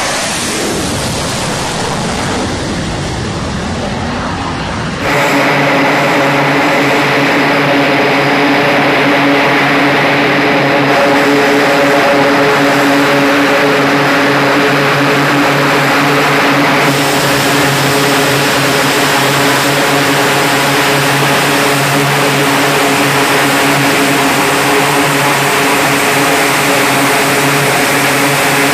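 For about the first five seconds, the roar of an F/A-18 Super Hornet's jet engines at the catapult. Then the sound cuts to an E-2 Hawkeye's two turboprop engines and propellers running on deck: a steady, even-pitched drone.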